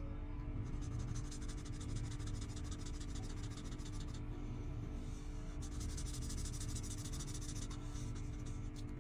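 Felt-tip marker scratching on paper in quick back-and-forth colouring strokes, over a low steady hum.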